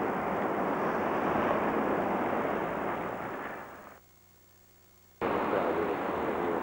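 Steady rushing wind and surf noise, with wind buffeting the camcorder microphone. It fades out about three and a half seconds in, drops to near silence for about a second at a break in the tape recording, then cuts back in abruptly.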